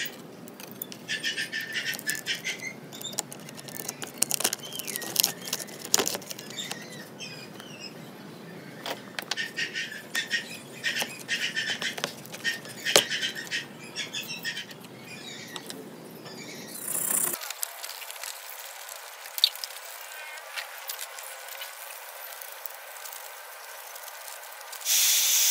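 Clicks, knocks and scraping of hands handling a mud-caked desktop motherboard as the CPU cooler is pried off and the RAM sticks are pulled from their slots, with high squeaks among them. Near the end a loud, steady hiss starts abruptly.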